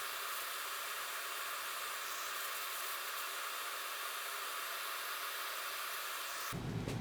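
Steady hiss with almost no low end, holding an even level and then cutting off suddenly near the end.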